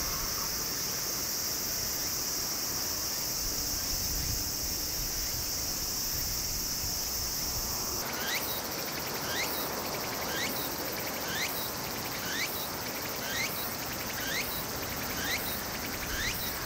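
Steady high-pitched drone of insects. About eight seconds in it changes abruptly to a pulsing insect song, about one pulse a second, each pulse with a short rising chirp.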